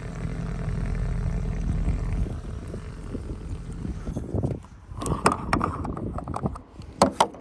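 Air hissing and sucking at the Cessna 182's wing fuel tank filler, the sign of a suction (vacuum) problem in the tank. A steady low hum stops about two seconds in, and several sharp knocks and rattles follow in the second half.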